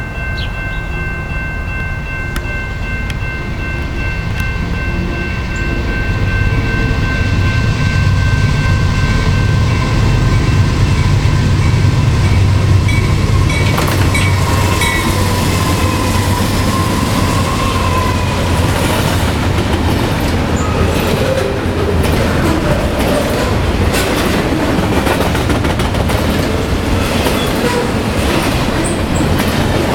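BNSF diesel locomotives approaching, their engine rumble building over the first dozen seconds. About halfway through they pass and the double-stack container cars roll by with steady clatter and sharp clicks from wheels over rail joints.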